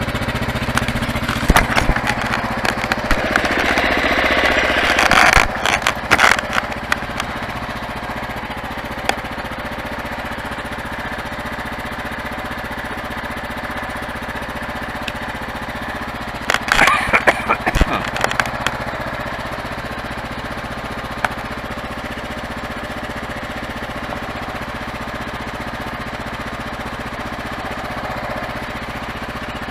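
Kawasaki KLR650's single-cylinder four-stroke engine running steadily as the motorcycle rides. A rush of noise builds a few seconds in, and sharp knocks and rattles come in two clusters: in the first few seconds and again about 17 seconds in.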